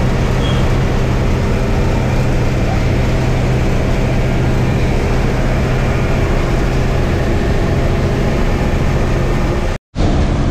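Engine and road noise inside a moving Uttar Pradesh state roadways bus: a steady, loud drone with a low engine hum underneath. The sound drops out completely for an instant near the end.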